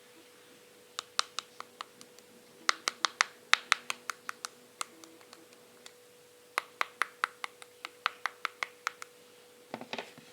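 Crisp fingertip taps and clicks on a hard surface in two quick runs of several taps a second, with a pause between them.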